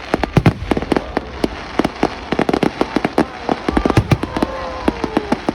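Aerial fireworks display bursting: a dense, unbroken run of sharp bangs and crackles, several a second.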